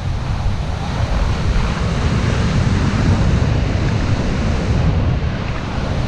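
Storm surf breaking and its foaming wash rushing across a flooded seafront promenade, a loud steady roar of water with heavy wind buffeting on the microphone.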